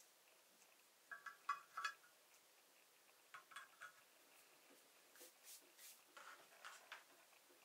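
Light clicks and clinks of a Leverpresso manual espresso maker's small metal filter basket and clear plastic parts being handled and fitted onto the stand: a cluster of short ringing clinks about a second in, a few more near the middle, and scattered clicks and scrapes near the end.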